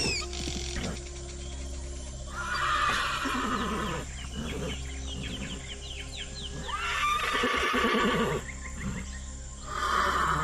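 Horse neighing about three times, a few seconds apart, over background music.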